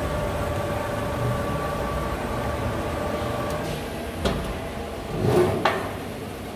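Tekcel CNC router running an automatic tool change. Its drive motors give a steady two-tone whine that stops about three and a half seconds in; sharp clicks and a thump follow as the tool-rack cover swings up.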